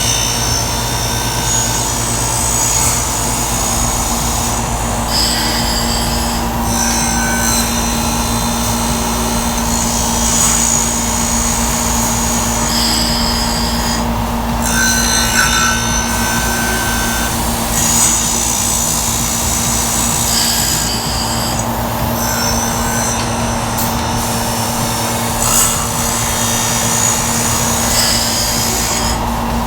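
Automatic chainsaw-chain sharpener running with a steady motor hum, its grinding wheel rasping against the chain's cutters in repeated passes of a second or two with short breaks between.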